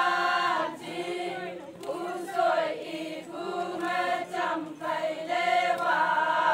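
A group of men and women singing a Konyak Naga folk song together in a chant, in phrases of long held notes with short breaks between them.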